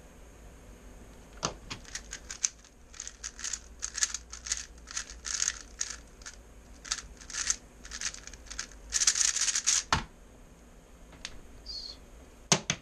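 A 3x3 speedcube being turned rapidly in a speed solve: fast bursts of plastic clicking and rattling from the layer turns go on for about eight seconds. They end with a single sharp knock about ten seconds in.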